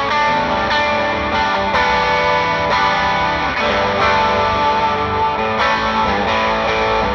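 Overdriven electric guitar played through a Fractal amp modeller with a York Audio Matchless 2x12 cab impulse response miked with an SM57: sustained, ringing chords changing about once a second.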